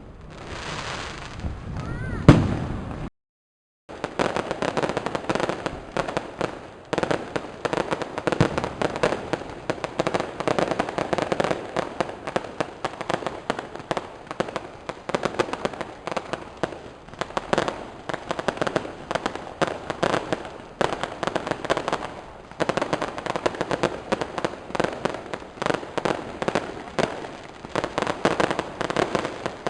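Fireworks going off: a sharp bang about two seconds in, then, after a brief cut-out, a dense crackle of many rapid small pops.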